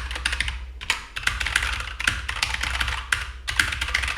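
Fast typing on a Keychron K2 V2 mechanical keyboard with Gateron switches: a dense, continuous run of clicky key strikes with a few brief pauses, given as a key sound test.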